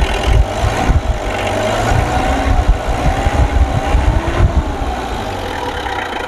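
Mitsubishi 4D56 four-cylinder diesel engine running, blipped lightly by hand at the injection pump and settling back to a steady idle about four and a half seconds in. With the injection pump timing corrected, it runs without the shaking and misfire it had before.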